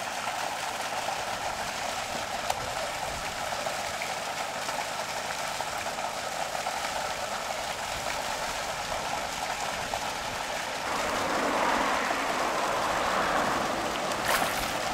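Water pouring from a drainage outfall pipe into a creek: a steady splashing rush that swells a little about eleven seconds in.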